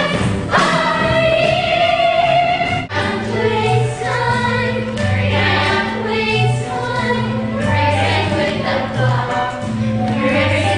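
Group of voices singing a musical-theatre number together over instrumental accompaniment, with a bass line moving note by note.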